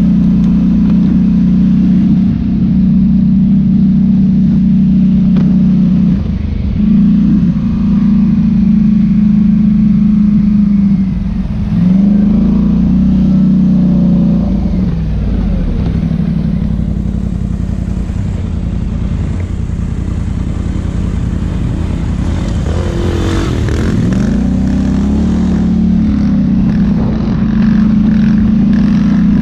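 Quad ATV engine running steadily under way, its note dipping and swelling a few times as the throttle changes. Through the middle stretch there is extra rattling and crunching from the tyres on a rough, gravelly trail.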